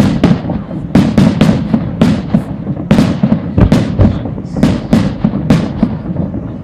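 Fireworks going off in a dense barrage: sharp bangs two or three a second over a continuous low rumble.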